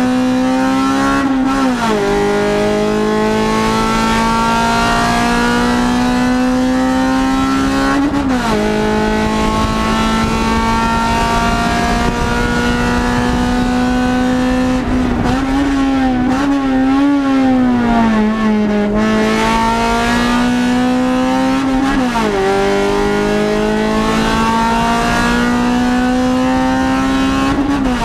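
Race-prepared car's engine heard from inside the cabin, pulling hard on track: its pitch climbs slowly in each gear and drops sharply at upshifts about 2, 8 and 22 seconds in. Between about 15 and 19 seconds the pitch wavers and falls as the car slows through a corner, then climbs again.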